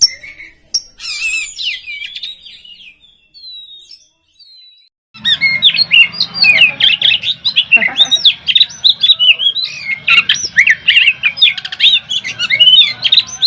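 Oriental magpie-robin (kacer) singing a fast, varied song of whistles and chattering notes. The song trails off over the first few seconds, pauses briefly, then starts again loudly about five seconds in and runs on densely.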